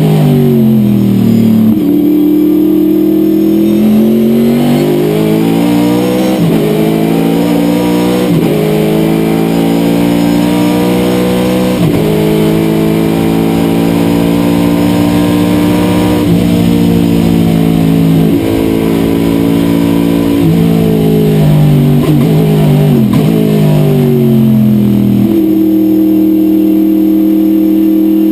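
Corvette C6 sports sedan race car's V8 engine heard from inside the cockpit. The pitch falls in the first couple of seconds, then climbs hard through upshifts about 6, 8 and 12 seconds in, holds high, and steps down again through downshifts, running lower near the end.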